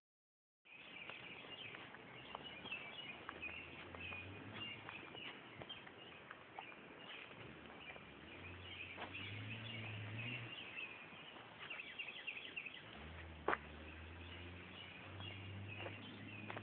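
Birds chirping steadily, with scattered light clicks and low rumbling handling noise from the phone, and one sharp click about two-thirds of the way through.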